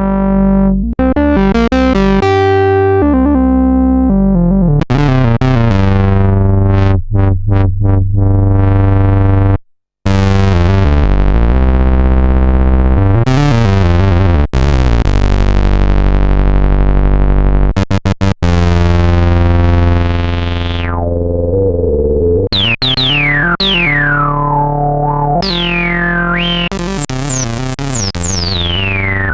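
Roland SH-101 monophonic analog synthesizer playing held low notes with the filter sweeping open and closed, cutting out for a moment about ten seconds in. In the last third it plays a run of quick falling pitch sweeps.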